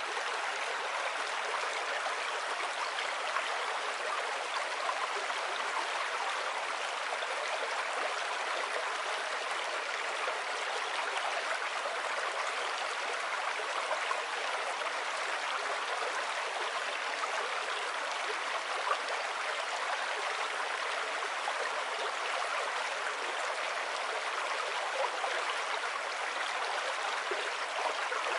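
A small river flowing: a steady, even rush and babble of running water.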